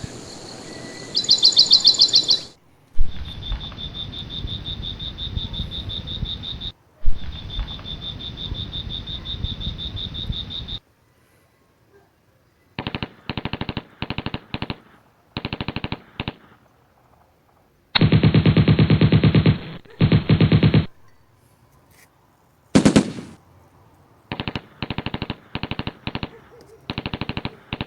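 Sound-effect clips played in sequence. A bird chirps briefly at the start. Then come bursts of rapid-fire automatic gunfire: two long volleys of about four seconds each, a run of short bursts, a dense three-second volley, a single hit, and more short bursts near the end.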